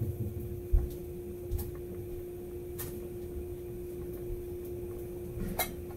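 Steady electrical hum in a small room, with a few faint clicks and knocks, the clearest one near the end.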